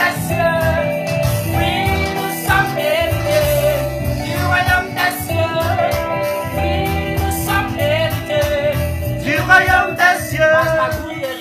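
Reggae gospel song: sung vocals over a steady bass line and beat.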